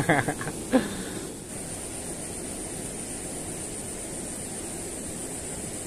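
Steady rush of a small river's flowing water, with a constant high-pitched whine over it.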